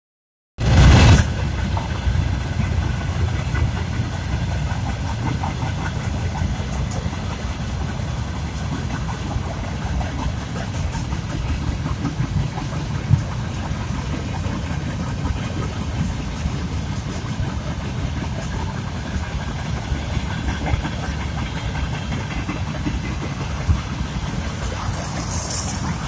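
Freight train hopper wagons rolling past with a steady low rumble. A brief loud burst comes at the start and a short high-pitched squeal near the end.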